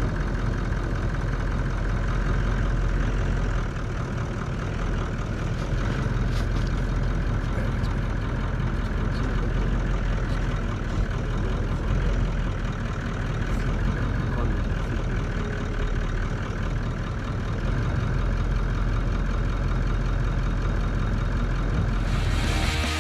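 Vehicle engine running steadily at idle. Music comes in near the end.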